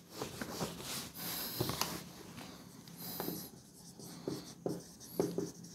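Whiteboard eraser wiping the board in two scraping strokes, then a marker writing on the whiteboard in a run of short strokes.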